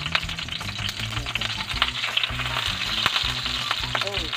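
Fish frying in hot oil in a pan: a steady sizzle with many sharp pops and crackles of spattering oil.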